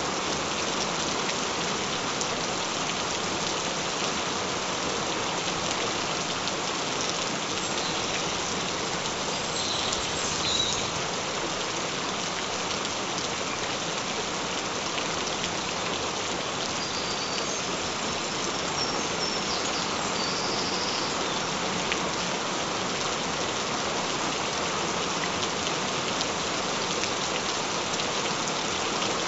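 Gentle rain falling steadily in an even patter.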